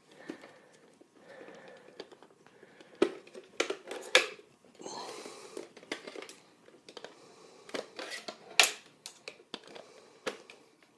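Hard plastic clicks, knocks and handling rustle as the PowerVision PowerEgg drone's hinged egg-shell halves and folded arms are swung open by hand. The clicks come irregularly, with a short rustle partway through and the sharpest click near the end.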